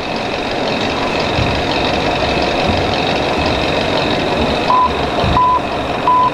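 A reversing alarm beeps three times, evenly spaced about two-thirds of a second apart, near the end, over a steady background rumble.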